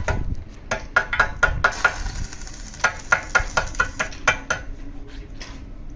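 A hammer striking steel plate: two quick runs of ringing metal-on-metal strikes, several a second, with a short pause between them.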